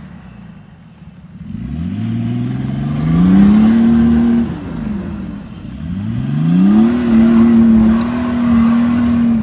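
BMW M57 3.0 straight-six turbodiesel in a Nissan Patrol Y61 revving hard twice, each time climbing for about two seconds and holding a high steady rev, with a drop between the two.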